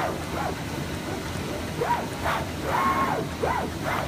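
IECHO BK3 digital cutting table's drive motors whining as the cutting head moves, the pitch rising and falling with each short move, several moves in quick succession and one longer move held at a steady pitch about three seconds in. Steady background hubbub underneath.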